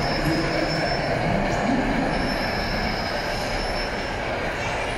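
G-scale model train running on its garden-railway track. A thin, steady, high squeal sits over the running noise at the start and comes back for about two seconds in the middle.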